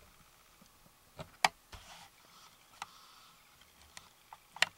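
Scattered sharp clicks and taps at uneven intervals, about seven in all, the loudest about a second and a half in and another near the end.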